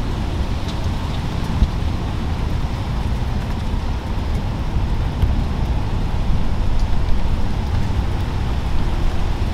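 Steady rain falling, a continuous even hiss with a low rumble underneath and faint scattered drop ticks.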